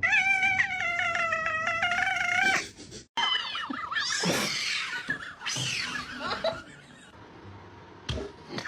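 A cat yowling: one long call with a wavering pitch for about two and a half seconds, then after a short break several more cries that rise and fall.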